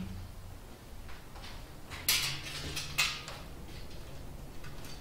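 Aluminium aircraft parts and tools handled on a workbench: two sharp metallic clacks about a second apart, a couple of seconds in.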